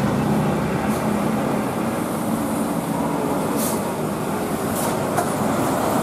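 Diesel engine of a large high-deck tour coach running as it climbs past close by, a steady rumble mixed with road noise, with a couple of short hisses about halfway through.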